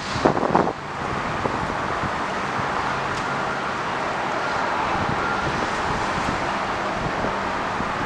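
Wind rushing steadily, with gusts buffeting the microphone in the first second.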